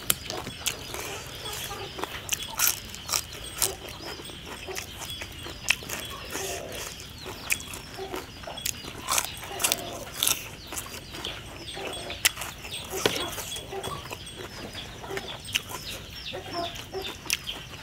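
Crisp raw green beans crunching as they are bitten and chewed, in a string of sharp crackly crunches, with chickens clucking and peeping in the background.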